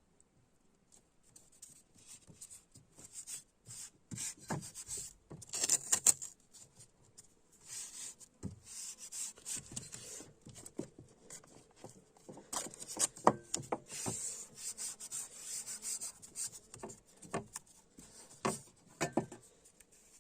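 Hand work on a steel knife blank cut from a chainsaw bar: irregular rubbing and scraping strokes with scattered sharp knocks.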